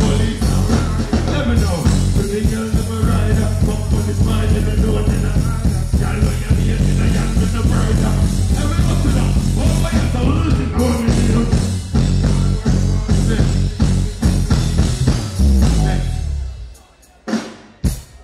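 Live dancehall performance through a concert sound system: a heavy, bass-driven backing track with the deejay's voice on the microphone over it. The music cuts off abruptly about a second and a half before the end, leaving a couple of short knocks.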